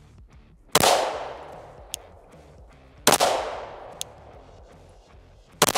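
Three slow, aimed pistol shots from a 10mm Glock, about two and a half seconds apart, each sharp crack trailing off over about a second.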